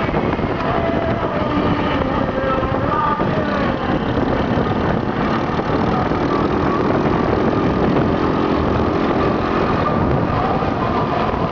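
Small off-road vehicle engines running on a gravel track, under a steady, dense rushing noise with no clear breaks.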